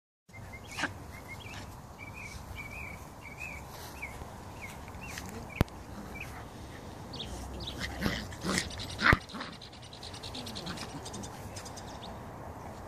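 Puppies whining, squeaking and yipping as they play-fight, with a burst of louder yelps a little over halfway through. Two sharp clicks stand out above them.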